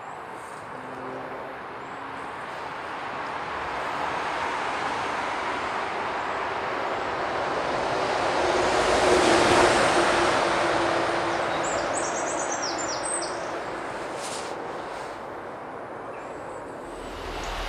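A vehicle passing by, its noise swelling slowly to a peak about halfway through and fading away again.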